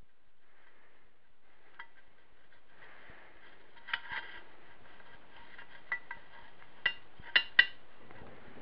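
Steel shift rail, fork and pin of a 1960 Wheel Horse 3-piece transmission clinking against the cast iron case as they are worked into place by hand: light scraping and scattered metallic clicks, with a few sharper clinks near the end.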